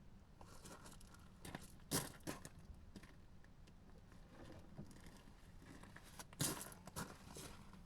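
Faint handling noises from working on machinery: scattered light clicks and rustles, with two sharper knocks, one about two seconds in and one near the end.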